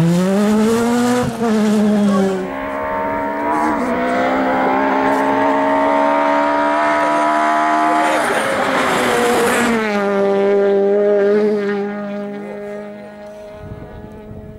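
R2 rally car engine at high revs, its pitch climbing through the gears as it approaches. A loud rush of noise comes as it passes about eight seconds in, then the pitch drops suddenly and the engine note fades away.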